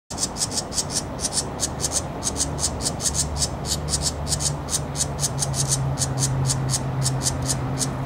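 Small songbird calling in a fast, even series of short high raspy notes, about six a second, over a steady low hum.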